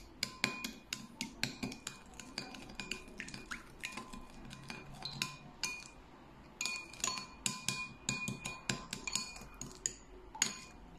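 A metal spoon clinking and scraping against the sides of a glass bowl while stirring a thin ketchup-and-cornstarch sauce: quick, irregular ringing taps several times a second, with a short lull about six seconds in.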